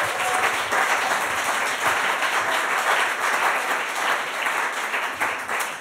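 Audience applauding: dense clapping from many hands, tapering off near the end.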